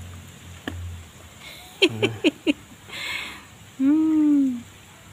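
Wet kitten meowing while being bathed in a bucket of disinfectant water: a few quick short cries about two seconds in, then one long, louder meow that rises and falls near the end, with a brief splash of water between them.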